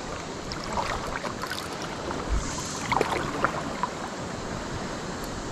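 Steady water and wind noise on the microphone, with a few light knocks and clicks about a second in and again about three seconds in.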